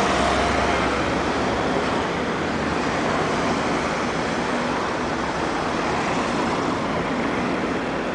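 Steady street traffic noise from cars driving past, with a low rumble in the first second.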